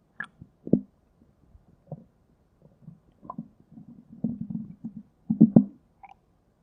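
Human stomach growling and gurgling in irregular bursts: short bubbling pops and low rumbles with gaps between, a longer rumble a little past four seconds, and the loudest gurgles about a second in and again near five and a half seconds.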